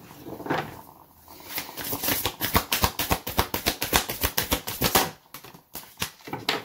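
A deck of oracle cards shuffled by hand: a quick run of crisp card flicks for about three seconds, then a few single snaps as a card is drawn and handled.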